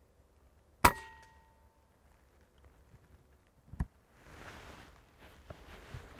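An air rifle firing once about a second in: a sharp crack with a short metallic ring after it. A second, quieter click follows nearly three seconds later, and then soft rustling.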